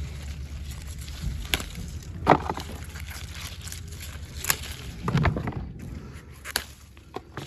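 Peppers being picked by hand from the plants: scattered sharp snaps of stems breaking, the loudest a little over two seconds in, with leaves rustling between them.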